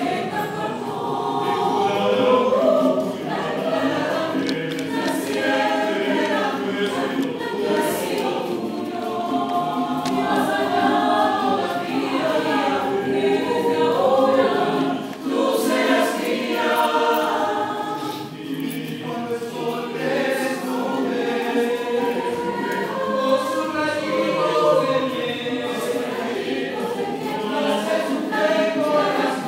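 Mixed choir of women's and men's voices singing a cappella in several parts.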